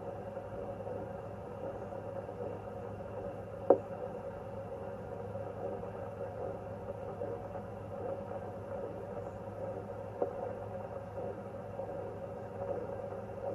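Handheld fetal Doppler's speaker putting out steady static, picking up sounds from inside the body. Two sharp clicks, about four seconds and ten seconds in.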